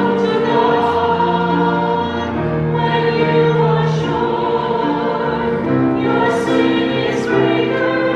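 Church choir singing a hymn in slow held chords, with a sustained keyboard accompaniment underneath.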